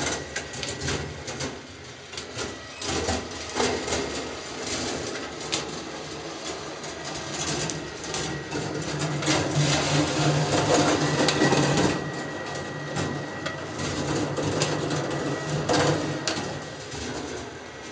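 Marbles rolling and clattering along a copper marble run, with many small clicks and knocks as they pass switches and track joints, over a steady hum from the motor-driven helical lift. The rolling swells and is loudest in the middle of the stretch.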